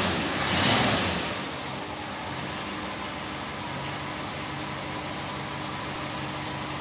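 1966 Ford F100's 352 cubic-inch FE V8 running: louder for about the first second, then settling into a steady idle while the idle is set by ear at the carburetor.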